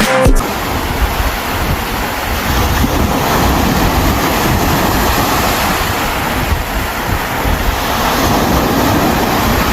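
Rushing surf with wind buffeting the microphone, a steady loud roar.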